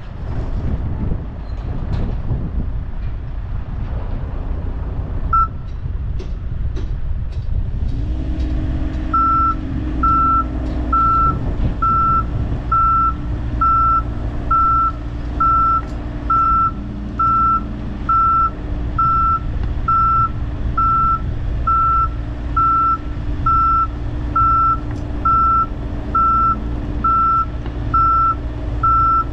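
A Volvo compact excavator's diesel engine running, its engine note picking up about eight seconds in. Its travel alarm then beeps steadily at about one beep a second, after a single beep a few seconds earlier.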